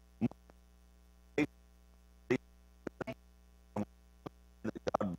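Steady low electrical hum, with a man's voice breaking in for a few brief, scattered syllables.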